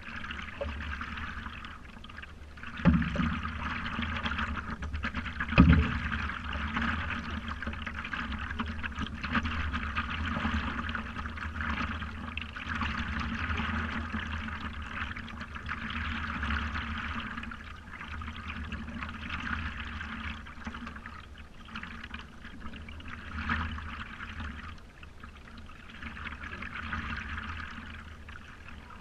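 Water gurgling and lapping against the nose of a stand-up paddleboard as it glides, swelling and fading every few seconds. Two sharp knocks stand out about three and six seconds in.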